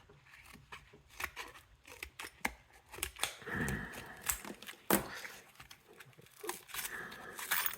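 Scissors cutting open a padlock's retail packaging: a string of sharp snips and clicks with rustling between them.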